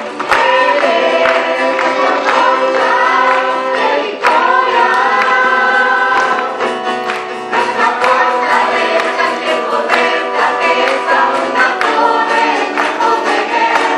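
A choir singing with guitar accompaniment; the guitar is strummed throughout.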